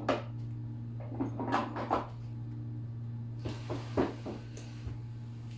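Irregular clicks and knocks of small hard objects being handled, a cluster of them near the middle, over a steady low hum.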